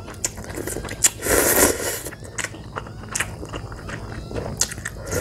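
A person eating crab ramen: a slurp of noodles about a second in, then chewing with many short clicks.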